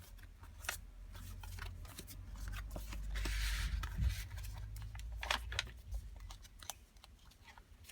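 Paper rustling and light taps as the coffee-dyed paper pages, pockets and tags of a handmade journal are handled and turned, with a longer sliding rustle about three seconds in over a low handling rumble.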